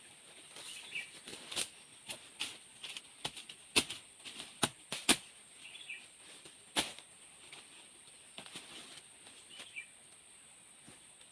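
Irregular sharp clicks and rustles, loudest about four to five seconds in and again near seven seconds, over a steady high insect drone, with a few short falling bird chirps.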